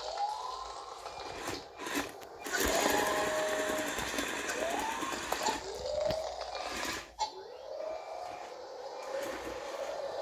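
LEGO BOOST electric motors and gearing driving a LEGO tracked vehicle: a whine that rises in pitch and levels off, again and again every second or so as the motors spin up, with a rattling run through the middle and a few sharp clicks.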